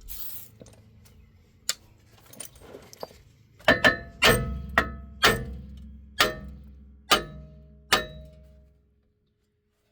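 Metal being struck: a few faint clicks, then about eight sharp clinks over four seconds, each ringing briefly with a bell-like tone.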